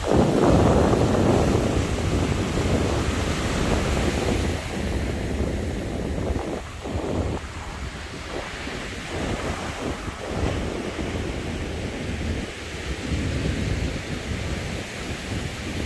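Wind buffeting the microphone in uneven gusts, strongest in the first few seconds, over the steady wash of sea surf breaking on the shore.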